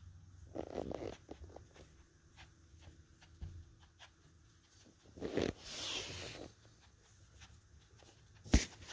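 Soft scuffling, scratching and rustling of labradoodle puppies and their mother dog moving about on a fleece bed and a bare floor, with a louder stretch of rustling a little past halfway and a sharp knock near the end.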